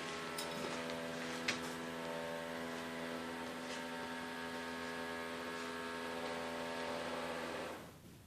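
Steady machine hum with many evenly spaced overtones and a few faint clicks, cutting off shortly before the end.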